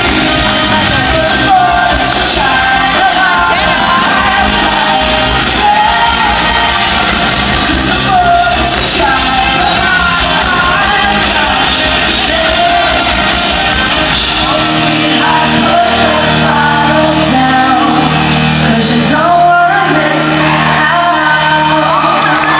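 Loud pop-rock song with a woman singing. About fifteen seconds in, the pulsing beat stops and held low notes carry on under the voice.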